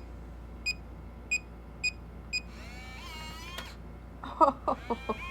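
Keypad of an electronic smart deadbolt beeping as code buttons are pressed: five short beeps of the same tone about half a second apart. A brief gliding voice-like sound follows, then a quick run of clicks near the end.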